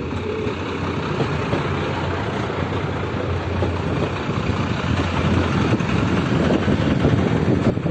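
Diesel tourist railcars (JR Shikoku Iyonada Monogatari, KiRo 47) rolling slowly past close by, diesel engine running with a steady low hum, slowly getting louder as the cars go by.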